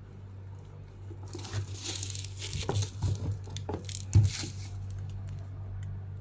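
Packaging wrap crinkling and rustling as it is handled, from about a second in until nearly five seconds, with one sharp knock in the middle of it, over a steady low hum.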